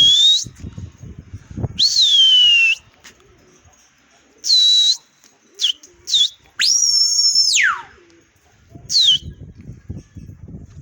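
A pigeon keeper's loud whistles, about seven in a row, most of them sliding down in pitch. One long held whistle near the middle drops sharply at its end. These are whistles to drive the pigeons up into flight.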